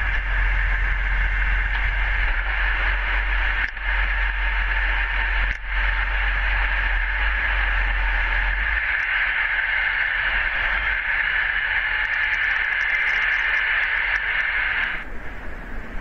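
Steady static-like hiss over a low rumble. The rumble drops away about nine seconds in, and the hiss cuts off abruptly about a second before the end.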